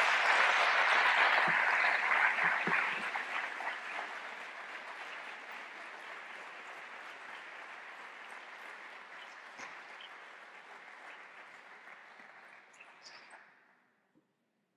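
Audience applauding a lecture's end: dense clapping, loudest in the first couple of seconds, then thinning and dying away gradually before stopping near the end.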